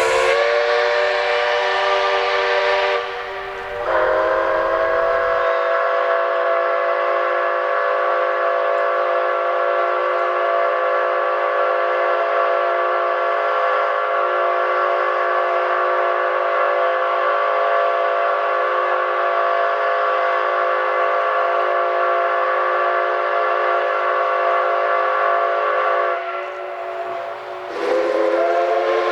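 Steam locomotive whistle, probably C56 160 'Pony', blowing a chord. A blast breaks off about three seconds in, then one very long steady blast of about twenty seconds follows, then a short pause and a fresh blast near the end. A low rumble from the locomotive sits under the first few seconds.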